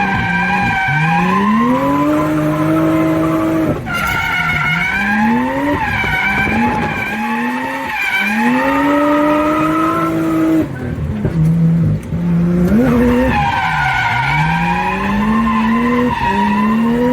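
Turbocharged drift car's engine being driven hard, its revs climbing steeply and dropping again about six times as the throttle is worked, with tyre noise under it.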